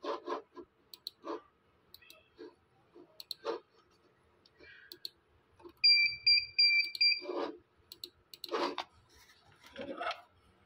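Computer mouse buttons clicking repeatedly during menu navigation. A little past the middle comes a quick run of about five high electronic beeps over a second and a half, the loudest sound.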